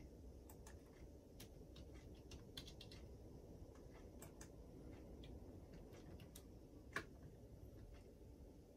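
Near silence: room tone with scattered faint, irregular clicks and one sharper click about seven seconds in.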